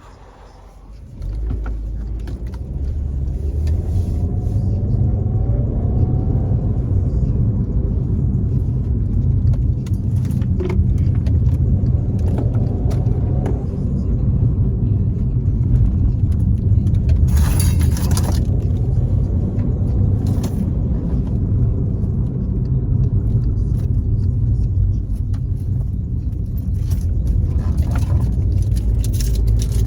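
Turbocharged Volkswagen Jetta driving, its engine and road rumble coming up loud about a second in and running steady and heavy. Faint rising whines come twice as the turbo builds boost, and a few short hissing whooshes come in the second half.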